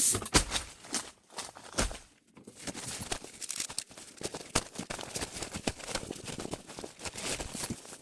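Irregular clicks, knocks and rustling from camping gear being handled, with several sharper knocks in the first couple of seconds.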